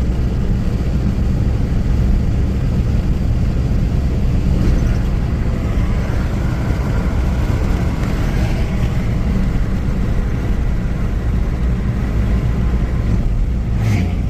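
Wind buffeting the microphone: a loud, steady, rumbling roar, heaviest in the low end.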